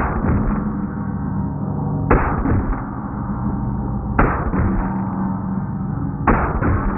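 Pistol shots from an FK BRNO 7.5 mm Field Pistol played back slowed down: four deep, drawn-out booms about two seconds apart, each ringing on until the next.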